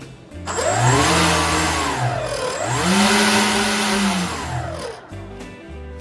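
Electric motor and propeller of a 3D-printed RC plane throttled up and back down twice. The whine rises, holds, falls, then rises and falls again over a rushing airflow noise.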